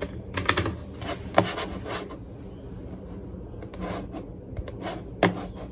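Typing on a compact computer keyboard: a quick run of keystroke clicks in the first second and a half, a pause, then scattered single keystrokes toward the end.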